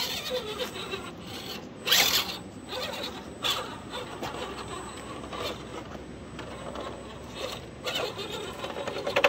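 Scale RC rock crawler driving over rocks: mechanical whirring from its drivetrain, broken by irregular scrapes and knocks of the tyres and chassis on rock. The loudest knock comes about two seconds in, and a quick run of sharp clicks comes near the end.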